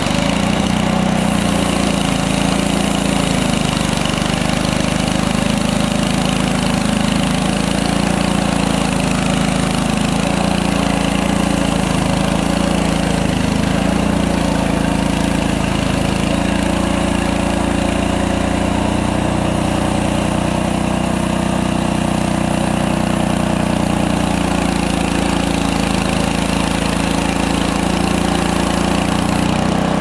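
Frontier OS23 portable bandsaw mill's small gasoline engine running steadily while the band blade cuts through a log, its pitch wavering slightly as the load changes.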